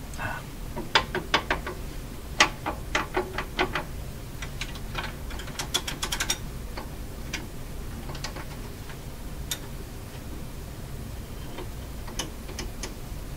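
Irregular clicks and light taps from the Philco 48-1826 console's old record changer as its tone arm is handled, lifted and moved, with a quick run of clicks about five to six seconds in and a few scattered clicks later.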